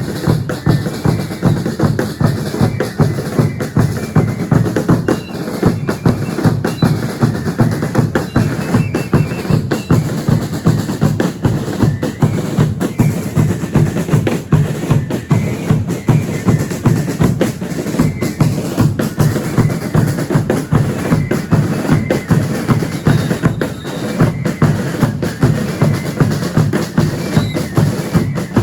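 Drums of a Chilean religious dance band, bass drums and snare drums, beating a steady, fast, unbroken rhythm.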